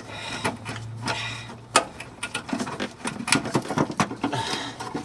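Irregular clicks, knocks and scrapes of hands working the old fuel filter and its hose fitting free under the car, with one sharp click a little under two seconds in.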